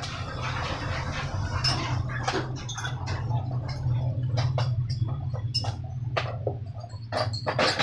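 Small metal table-fan parts being handled on a workbench: scattered light clicks and knocks, more of them in the second half, over a steady low hum.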